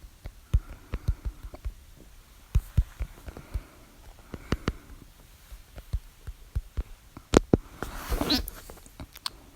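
A woman's hiccups: soft, low, gulping thumps and clicks keep coming, with one sharp, loud hiccup about seven seconds in. Right after it comes a breathy rush with a falling squeak.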